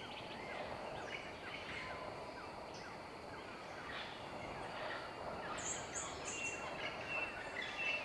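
Jungle birds chirping and calling over a steady background hiss. A little past halfway comes a quick run of four high peeps, and near the end a thin, steady whistle.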